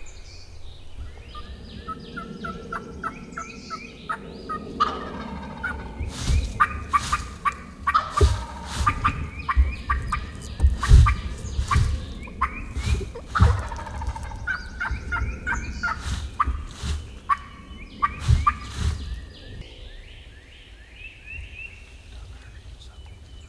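Wild turkey gobblers gobbling again and again, the gobbles coming close together through the middle and thinning out near the end. Sharp clicks and low thumps are mixed in among them.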